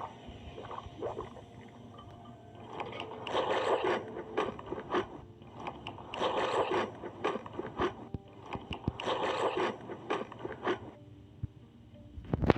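Close-miked eating sounds: chewing and mouth noises in three bursts of about a second and a half each, with small clicks in between.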